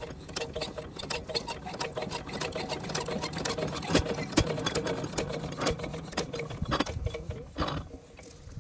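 Single-cylinder stationary diesel pump-set engine being hand-cranked at its flywheel: a fast mechanical clatter that builds up and then stops near the end, with the engine not yet running under its own power.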